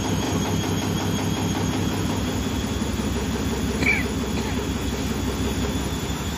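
Beko WRE6512XWWE front-loading washing machine spinning with a steady, loud mechanical drone and a fast throbbing vibration. This is the heavy spin vibration the owner reports, which persists even with new shock absorbers, drum and feet. A brief high squeak comes about four seconds in.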